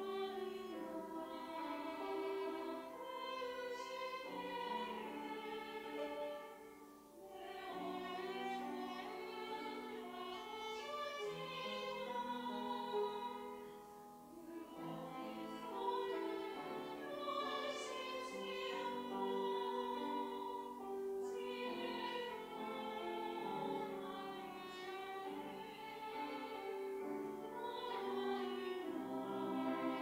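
Mixed-voice church choir singing an anthem, in sustained phrases broken by short pauses about every seven seconds.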